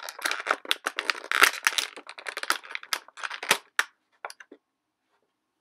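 Clear plastic packaging bag crinkling and crackling as it is handled and pulled open; the crackling stops about four and a half seconds in.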